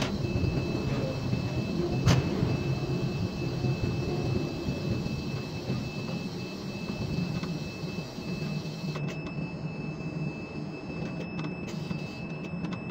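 Ship-to-shore quay crane machinery running steadily as the spreader is hoisted on its wire ropes and trolleyed out over the ship, heard from the operator's cab, with a thin steady whine through it. One sharp click about two seconds in.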